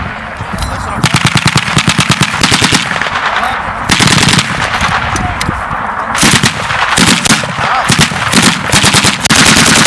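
Belt-fed 7.62 mm machine guns firing bursts of rapid automatic fire on a range. There is one long burst from about a second in to nearly four seconds, then more bursts near the end, several overlapping.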